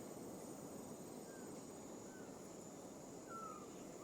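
Trogon calling: short, faint downslurred notes about a second apart, the later ones louder and longer, over a steady high-pitched whine in the background.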